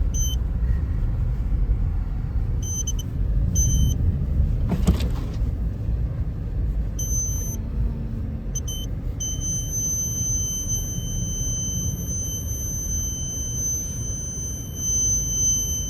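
Low steady rumble of a car driving through deep snow. A thin high-pitched electronic beep sounds in short pieces, then holds as one steady tone from about nine seconds in.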